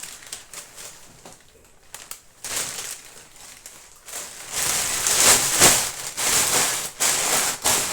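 Plastic bags and food packaging rustling and crinkling as they are handled, soft at first and much louder from about halfway through.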